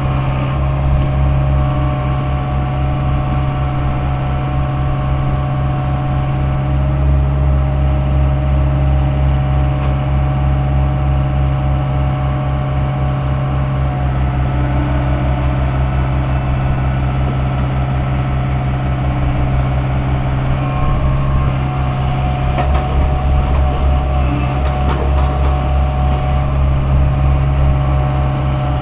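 Daewoo 75V compact excavator's diesel engine running steadily under load as the arm and bucket dig soil, a continuous low drone with a few higher steady tones above it.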